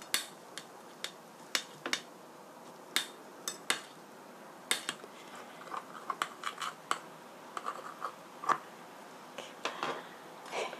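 Kitchen scissors snipping through a potato pancake on a ceramic plate, with a fork holding it: a string of irregular sharp clicks and scrapes.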